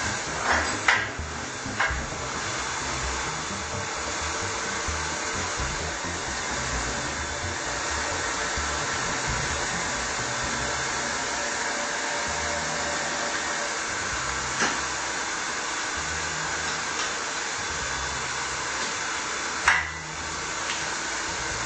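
Electric milling motor of a BDS AutoCUT 500 bevel edge milling machine running with a steady whir. Several sharp knocks come in the first two seconds and two more come later, the last one the loudest.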